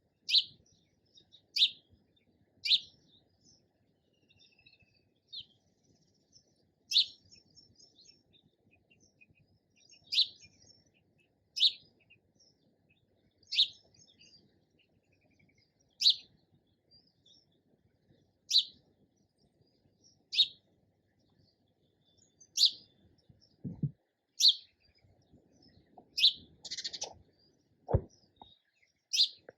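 Sparrow chirping: single short, sharp chirps repeated every second or two. Two short low thumps come near the end.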